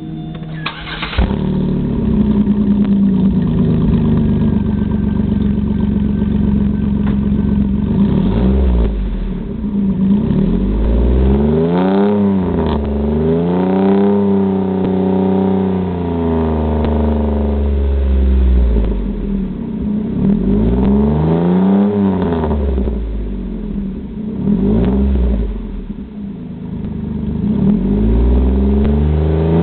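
2006 Pontiac G6 GTP's 3.9-litre V6 through a GT-R exhaust: it starts up about a second in and idles steadily for several seconds. It is then revved again and again, with one longer rev held for several seconds around the middle and shorter blips before and after.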